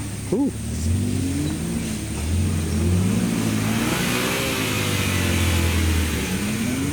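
Engine of a Suzuki Jimny-based off-road trial machine revving up and down repeatedly, with a rushing hiss swelling about four to six seconds in.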